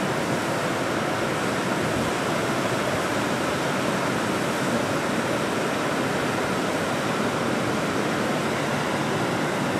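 Water pouring out of an open dam gate into the river below, a steady rushing noise with no change in level.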